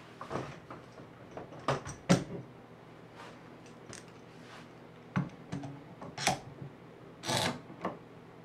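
Scattered clicks and knocks of tools being handled on a workbench: a cordless drill being set down and a metal bar clamp being fitted to a wooden drilling jig. The knocks come singly and irregularly, the loudest about two seconds in.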